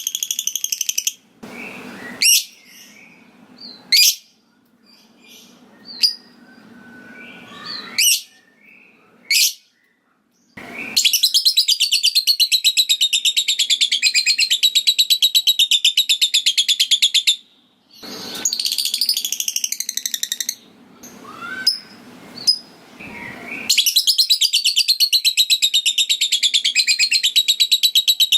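A lovebird calling: scattered short chirps and sharp single calls, then long, rapid chattering trills, the 'ngekek', each lasting several seconds, one starting about eleven seconds in and another near the end.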